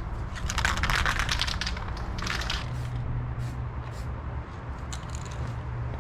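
Aerosol spray can of black engine enamel spraying onto an engine block: a hiss of just over a second, a shorter one after it, then a few brief puffs. A steady low hum underneath.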